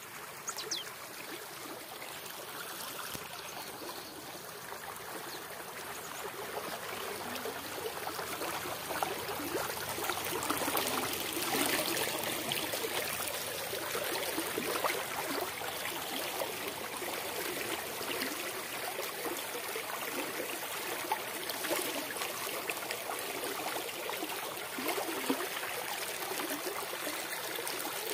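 Shallow brook with muddy water rushing and splashing over a low rock ledge. The steady rush of water grows louder partway through and stays up.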